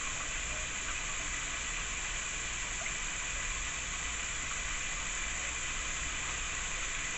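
Steady sizzling of food cooking on a hot stovetop, a constant hiss with a few faint pops.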